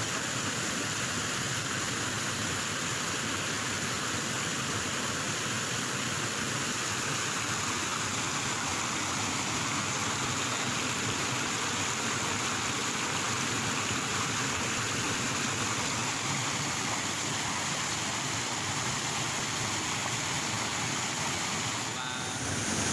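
Steady rush of a stream cascading over rocks, dipping briefly near the end.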